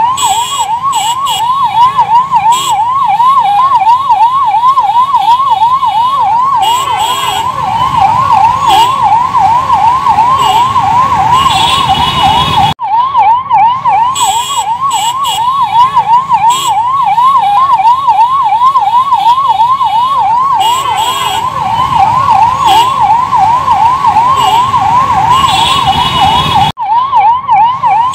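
Ambulance siren wailing in a fast rising-and-falling yelp, about three sweeps a second, breaking off briefly about halfway and again near the end.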